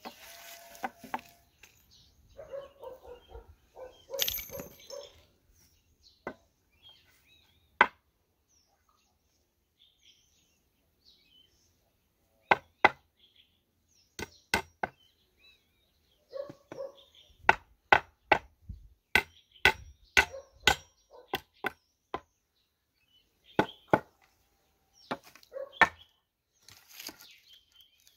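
Claw hammer driving nails into wooden boards: sharp knocks in irregular runs, a few at first, then coming thick and fast through the second half.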